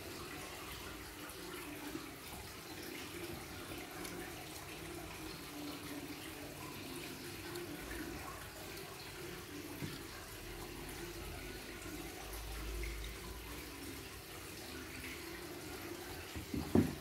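Steady faint background hiss with a low hum, and a couple of short knocks near the end.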